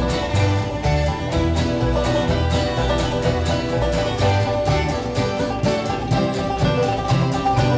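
A bluegrass band playing without singing: banjo picking over strummed guitar, with steady low notes on the beat.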